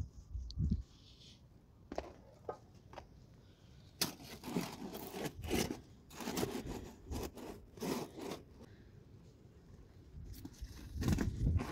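Crusty, freshly baked flatbreads being handled in a metal basin: a run of dry rustles and scrapes as the breads rub against each other, after a few sharp clicks. Low thuds come near the end.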